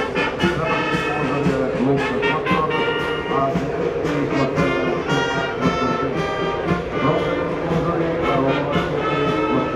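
Brass band music with a steady beat, horns playing a melody over it.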